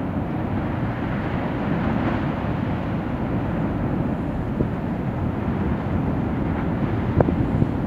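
Benbow's lava lake on Ambrym volcano boiling violently: a steady low rumbling noise, with a few sharp pops near the end.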